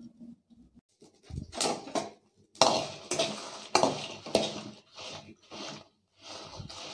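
Steel spoon scraping and stirring dried red chillies, peanuts and coriander seeds in a kadai as they roast, in a run of scrapes about two a second with a few sharper clinks, starting about a second in.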